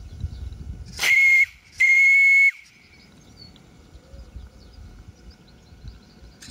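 Steam whistle on a Regner Nr. 102 live-steam garden-railway tram, worked by radio control, blown twice: a short blast and then a slightly longer one. Each is a steady, high tone, and the second sags in pitch as it cuts off.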